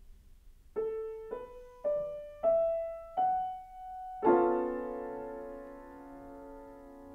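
Steinway concert grand piano: five single notes climbing in pitch one after another, then a loud chord struck about four seconds in and left to ring, slowly dying away.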